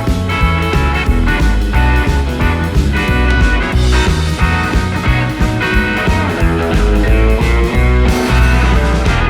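Background rock music with electric guitar and a steady bass beat.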